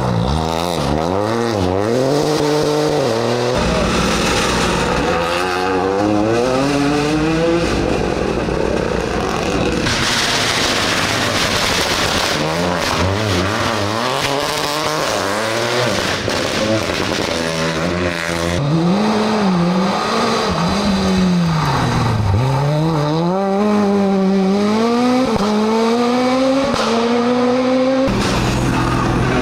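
Rally car engines revving hard through the gears, the pitch climbing and dropping again and again as cars go by on a special stage. There are several different passes, one after another.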